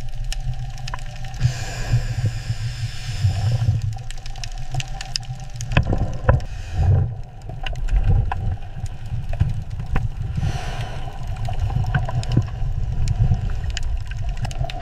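Steady low machinery rumble with scattered clanks and knocks, and two bursts of hiss, one about two seconds in and one about ten seconds in.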